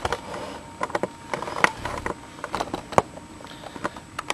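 Irregular light clicks and taps of handling noise as a boxed action figure in cardboard and plastic packaging is moved about, with one sharper click about three seconds in.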